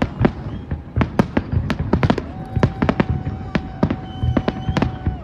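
Fireworks going off in rapid succession, a dense run of sharp bangs several a second. From about two seconds in, a steady whistling tone is held for about three seconds.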